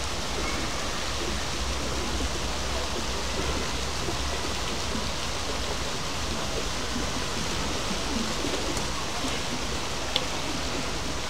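Steady, even rush of running water, with one short click near the end.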